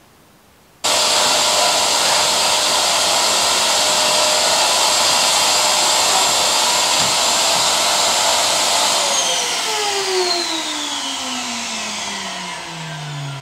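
Canister wet-and-dry vacuum cleaner switched on about a second in and running steadily while the floor is vacuumed. About nine seconds in it is switched off and the motor's whine falls in pitch as it spins down.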